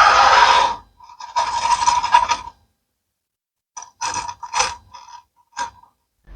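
Bursts of mechanical rattling and scraping: a long one at the start, another about a second later, then four or five short ones after a pause, each stopping abruptly into dead silence.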